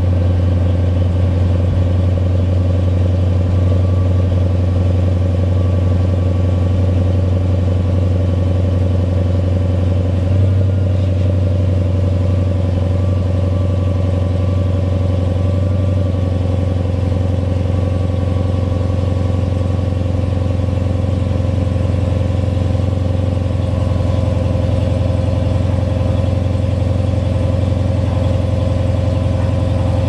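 2013 Dodge Challenger SRT8's 6.4-litre 392 HEMI V8 idling steadily, heard from behind the car at its exhaust tips.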